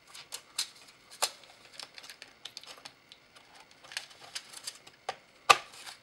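Light clicks and taps of a DDR4 laptop memory stick being pressed down into its slot in a laptop's plastic and metal chassis, with one sharp, louder click about five and a half seconds in.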